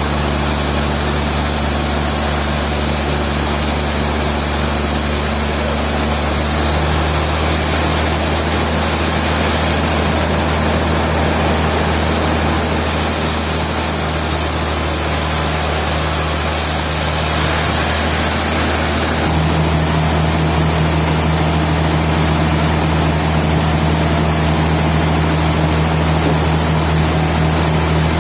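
Sawmill machinery running steadily: a low, engine-like hum under a loud, even rushing noise. The hum changes pitch about 7 seconds in and steps up again about 19 seconds in.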